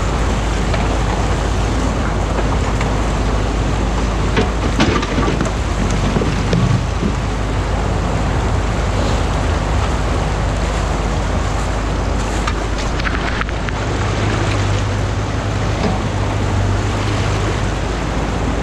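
Stream water rushing steadily over a concrete weir, with the low hum of an excavator engine beneath that swells for a few seconds near the end. A few short knocks and scrapes come from a rake working debris in the flow.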